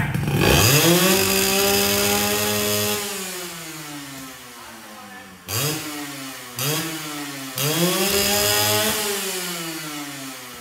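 Yamaha 125ZR two-stroke single-cylinder engine, fitted with four aftermarket performance parts, being revved on the spot: a long rev held for about three seconds and dying away, two short throttle blips, then another rev that falls off near the end.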